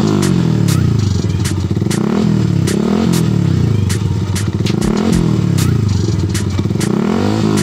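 Motorcycle engine revved repeatedly through an R8 Akrapovic GP-style aftermarket exhaust with its silencer insert fitted, the pitch climbing and dropping several times.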